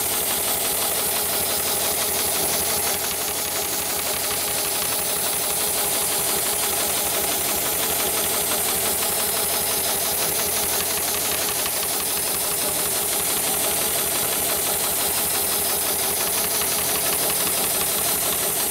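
Heavy-duty automated shoe-sole stitching machine running steadily, its needle stitching at a rapid, even rhythm.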